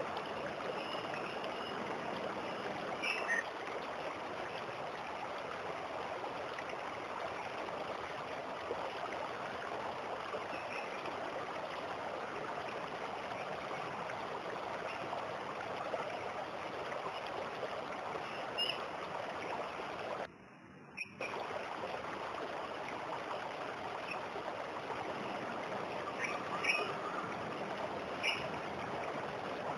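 Waterfall water rushing in a steady, even stream, with a few faint, short bird chirps. The sound drops out for about a second roughly two-thirds of the way through.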